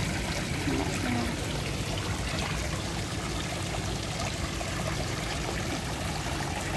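Steady splashing and trickling of water from a garden pond's fountain jets falling back into the pond.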